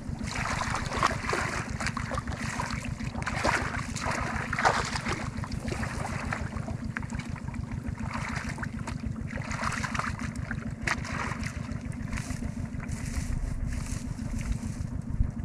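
A small engine running steadily with an even, rapid low pulse, with irregular splashing of water over it.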